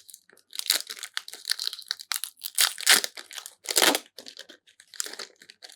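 A trading-card booster pack wrapper being torn open and crinkled in the hands, in irregular bursts of rustling and crackling that are loudest about three to four seconds in.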